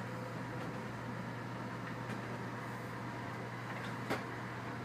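Steady low running hum and rumble inside a moving VIA Rail passenger car, with a single sharp click about four seconds in.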